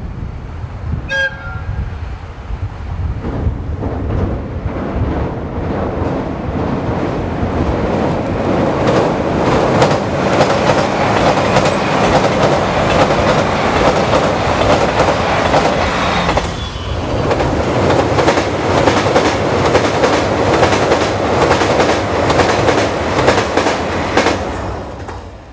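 JR Hokkaido KiHa 283 series diesel express train running past over a steel girder bridge: loud, dense clatter of wheels over rail joints with engine noise, building up over the first few seconds and cutting off suddenly near the end. A short horn toot sounds about a second in.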